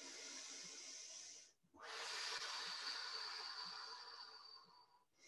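A woman breathing deeply through a standing stretch: two long, soft breaths, a short one and then a longer one of about three seconds, with brief silent pauses around them.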